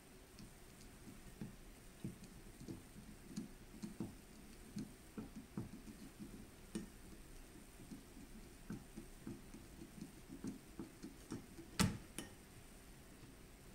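Screwdriver turning the top lever screw into a shotgun receiver, drawing the top lever parts together: faint, irregular light clicks and ticks of metal on metal, a few a second, with one sharper click near the end.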